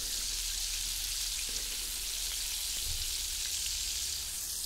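Coated chicken pieces deep-frying in hot oil in a wok: a steady sizzling hiss.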